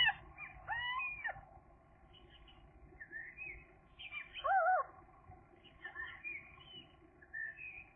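Gull mew calls: loud drawn-out cries that glide up and down in pitch, one at the start and another about a second in, then a two-note wavering call about four and a half seconds in. Fainter, high, short chirps come in between.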